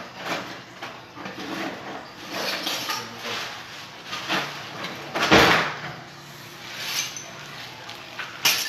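Kitchen drawers and cupboards being rummaged through: a string of small knocks and clatters, with one loud bang about five seconds in and another sharp knock near the end.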